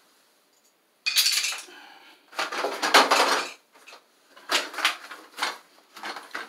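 Packaging of a replacement toilet flush lever rustling and crinkling as it is handled, in several noisy bursts starting about a second in.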